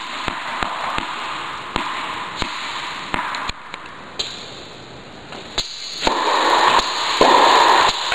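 Tennis ball bouncing on an indoor court floor, several sharp separate bounces in the first few seconds, then one sharp racket strike of a serve about five and a half seconds in. Over the last two seconds there is a louder stretch of rushing noise.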